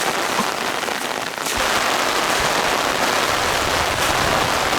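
Rain falling steadily, a dense even hiss; from about a second and a half in, a deeper rumble joins it.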